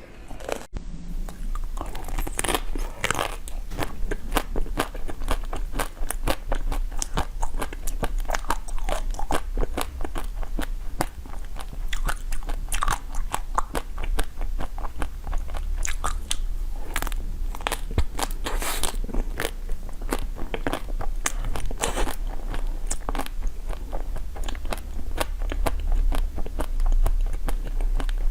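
Close-up crunchy biting and chewing of crisp food, with many irregular sharp crunches over a steady low hum.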